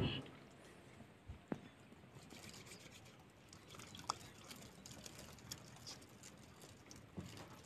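Faint water dripping and trickling over hands being washed and rubbed together, with a couple of light ticks.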